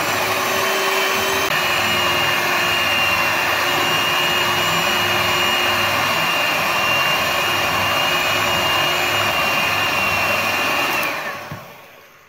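Electric hand mixer running steadily with a high motor whine, its twin wire beaters whipping gelatin-and-sugar marshmallow mixture in a glass bowl until it turns white and creamy. About a second before the end it is switched off and winds down.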